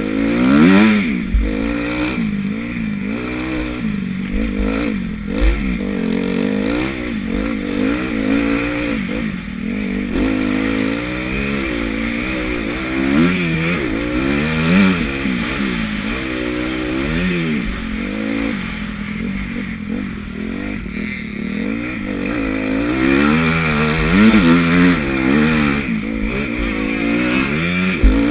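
Motocross bike engine heard from the rider's helmet, revving up and falling back again and again as the throttle is opened and closed.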